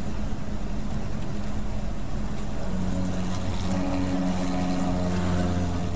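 Semi-truck cab noise at highway speed: a steady rumble of engine and road. About halfway through, a steady low engine drone comes up and holds.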